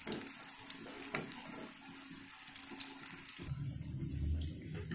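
Breaded potato cutlets shallow-frying in hot oil in a pan: a steady sizzle with scattered crackles and pops. A low hum joins in about three and a half seconds in.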